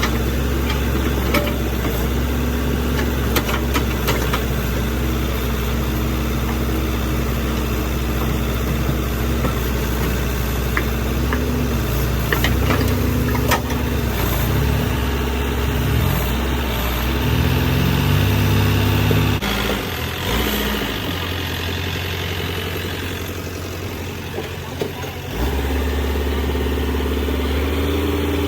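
JCB backhoe loader's diesel engine running at a steady working speed, revving up about two-thirds of the way in, then dropping back and running quieter for a few seconds before picking up again near the end. Occasional sharp knocks and clatter are heard over it.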